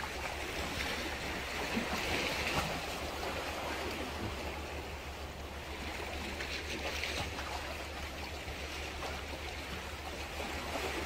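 Calm seawater lapping and washing against concrete breakwater tetrapods, a steady low wash that swells a little now and then.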